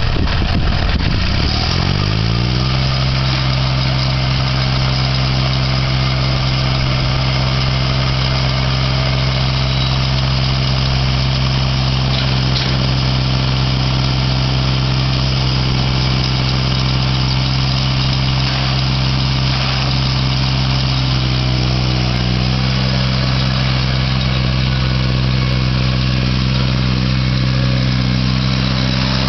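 Massey Ferguson tractor's engine running just after being started, its pitch climbing over the first two seconds or so and then holding at a steady speed.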